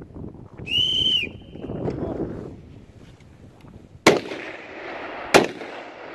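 Two rifle shots from long-range precision rifles, about a second and a half apart, each a sharp crack with a short echo. Earlier comes a brief high-pitched tone, with wind noise in between.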